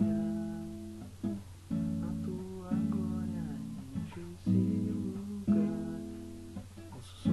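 Acoustic guitar strumming chords, a new chord struck every second or so and left to ring out and fade.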